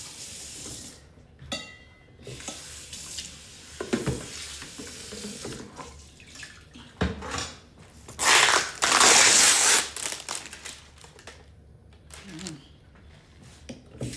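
Kitchen tap running into a sink for about two seconds, water splashing, with scattered knocks and clinks of pots and utensils before and after.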